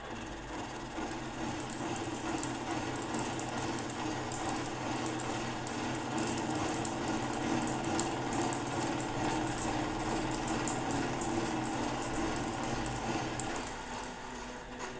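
Milling machine running with its shell mill at a slow spindle speed: a steady motor and gear hum with a constant high whine and faint light ticks. The hum eases a little near the end.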